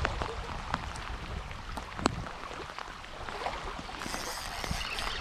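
Rain falling on a reservoir's surface, with wind rumbling on the microphone in the first couple of seconds and scattered sharp ticks, the loudest about two seconds in.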